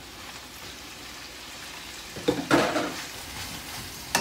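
Minced pork frying in hot oil in a frying pan: a steady sizzle, swelling to a louder burst of sizzling and stirring about two seconds in as it is worked with a wooden spatula, and a sharp knock right at the end.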